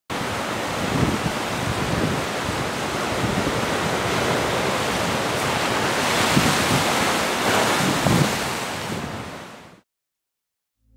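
Ocean surf: a steady rush of breaking, churning waves with heavier surges every second or so, fading out near the end.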